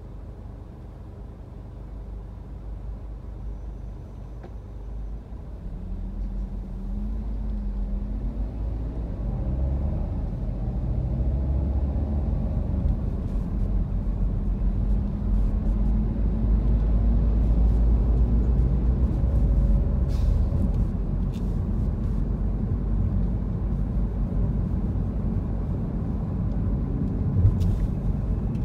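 Car in city traffic: a low engine and road rumble that builds from about six seconds in as the car pulls away from a standstill and gathers speed, with a rising engine note as it accelerates. A few light clicks come near the end.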